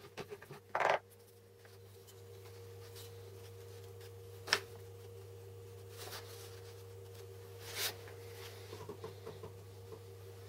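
Steady low hum with a fainter steady tone above it, under light handling sounds: a short knock about a second in, a sharp click midway, and a brief rustle near the end.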